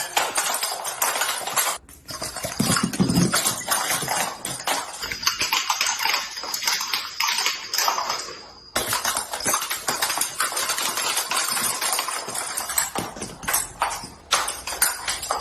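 Joints cracking during chiropractic adjustments: a dense run of sharp cracks and clicks, broken by abrupt cuts about two seconds in and near nine seconds.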